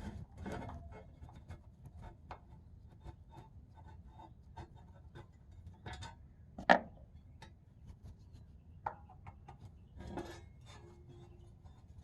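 Scattered small clicks and light knocks of hand tools and parts being handled while working on the lathe, with one sharp clink about seven seconds in and a smaller one a couple of seconds later.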